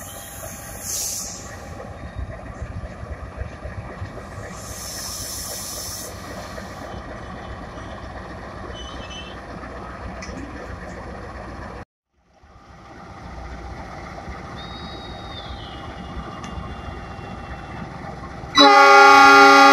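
Diesel-electric locomotive of a passenger train, a KAI CC206, rumbling steadily as it comes along the line, with two short hisses. Near the end the locomotive's multi-tone horn sounds, much louder than the train.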